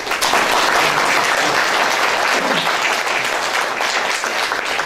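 Audience applauding: many hands clapping in a steady patter that starts suddenly and holds at full strength.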